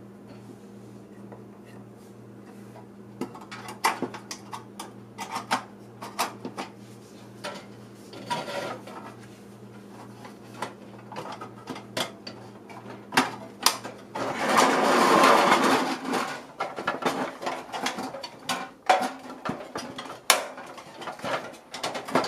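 Toy castle playset pieces clicking and knocking as they are handled and fitted together, with a steady low hum underneath. About fourteen seconds in, a louder rustling scrape lasts a couple of seconds, and then the clicking goes on.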